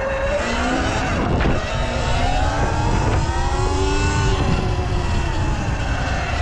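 Sur Ron X electric dirt bike's motor and drive whining while riding, its pitch rising and falling as the bike speeds up and slows, over a steady rumble of wind on the microphone.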